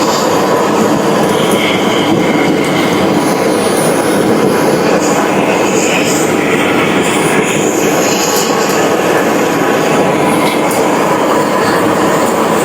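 Loud, steady mechanical noise from heavy machinery running, without pauses or clear strokes.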